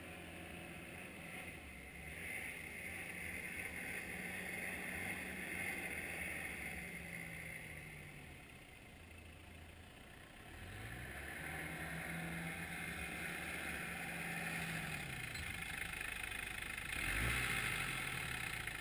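Nissan Terrano's 2.7-litre TD27 turbo-diesel four-cylinder revving up and down as the 4WD is slid around. The revs drop away about halfway, climb again, and are loudest near the end.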